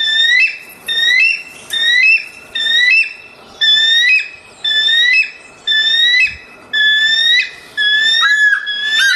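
Dog whining in a series of high-pitched cries, about one a second, each rising briefly and then held; the last cry, near the end, is drawn out longer.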